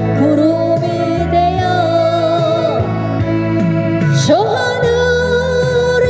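A woman singing a Korean song into a handheld microphone over a recorded backing track, her voice holding and sliding between long notes.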